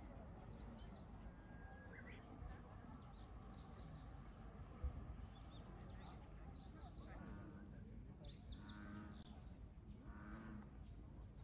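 Quiet outdoor ambience: a low, steady background with scattered short bird chirps and faint distant voices. A single soft knock about five seconds in.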